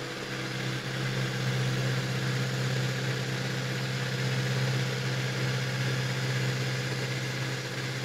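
iRobot Roomba 692 robot vacuum running with a steady hum as it drives back to its charging dock.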